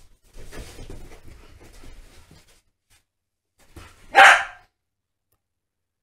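Staffordshire Bull Terriers playing: about two seconds of scuffling and movement noise, then a single short, loud bark about four seconds in.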